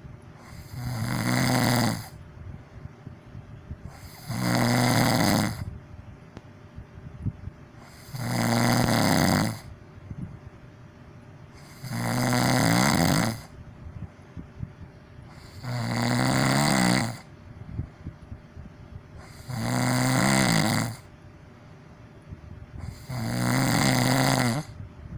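A person snoring loudly, a rough, buzzing snore about every four seconds with quiet breathing between.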